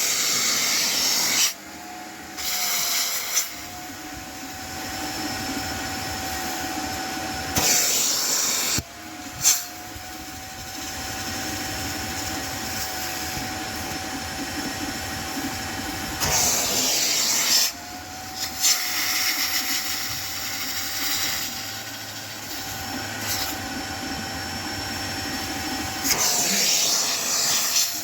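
VEVOR wet/dry vacuum cleaner running steadily. Four times, a louder rush of air lasts a second or two, and the motor note dips and recovers.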